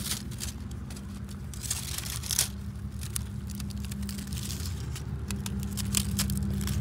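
Dry palm-leaf fronds crackling and rustling in irregular bursts as they are handled and torn, over a steady low hum.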